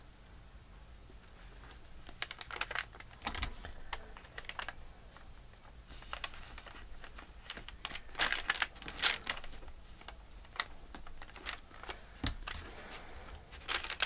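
Hands working paper collage pieces on a journal page: scattered light taps, clicks and paper rustles that come in small clusters.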